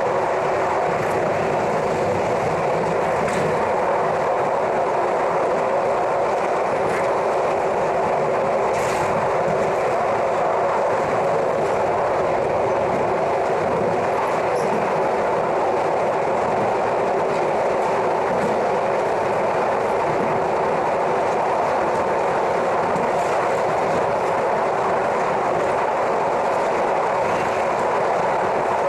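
Passenger train running steadily, heard from on board as an even rolling noise of wheels on rail, with a few faint clicks from rail joints.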